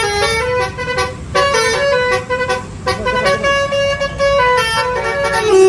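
Basuri telolet bus horn, a multi-tone air horn, playing a tune of held notes that step up and down in pitch, over a low rumble.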